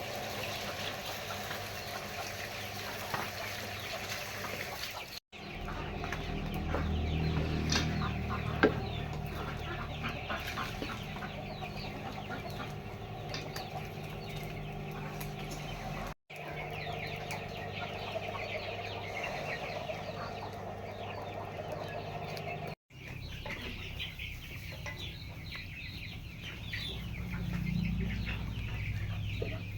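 Chickens clucking over a steady low background hum, with the sound dropping out briefly three times.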